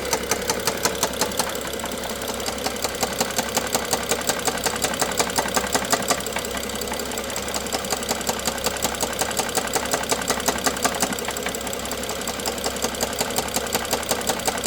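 BMW N55 turbocharged inline-six engine idling with a steady, rhythmic knock, about six a second, that grows louder and softer in waves of a few seconds.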